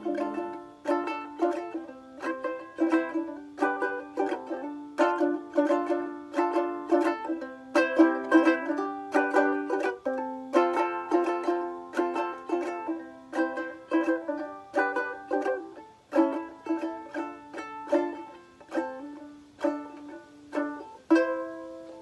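Plucked string instrument played without singing: a run of quick, sharply struck notes and chords, with a last chord near the end left to ring out.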